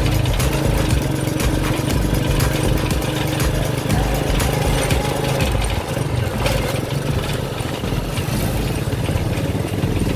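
Motorcycle engine running steadily under a payong-payong motorcycle taxi on the move, with road and wind noise over it.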